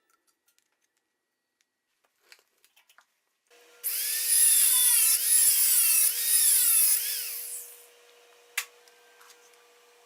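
A power tool working material for about four seconds, its pitch wavering up and down under load over a steady motor hum that keeps running afterwards. A single sharp click comes near the end.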